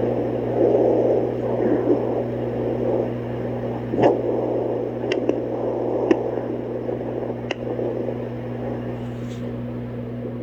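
Handheld fetal Doppler's speaker giving a steady electrical hum under a fluctuating whooshing static, with four sharp clicks spaced about a second apart in the second half. No clear heartbeat rhythm stands out.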